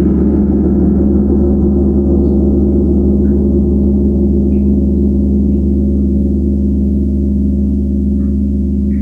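Tam-tam gong sounding as a sustained wash of many overlapping low tones. Its higher overtones fade slowly while the deep hum holds steady, with no new strike.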